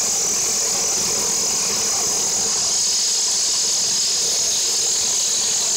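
Artificial rice production line machinery running steadily: an even machine noise with a constant high-pitched hiss over it.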